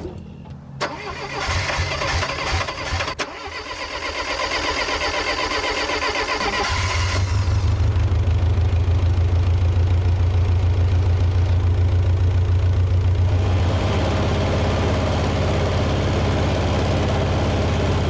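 Old Bobcat skid steer's gasoline engine cranked over by the starter for several seconds, catching about seven seconds in and then running steadily, its note easing slightly partway through. The engine runs, but seemingly on three cylinders, a misfire that is put down to a worn distributor.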